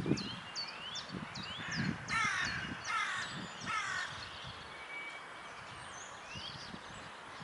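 A crow cawing three times, about a second apart, starting about two seconds in, over the short high chirps of small songbirds.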